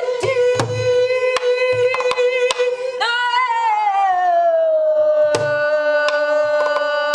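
A woman singing wordless gugeum (Korean vocal scat) in long held notes, the second sliding down in pitch from about three seconds in, over strokes on a buk barrel drum keeping a gutgeori rhythm. The drum strokes come quickly at first and sparser after the pitch slide.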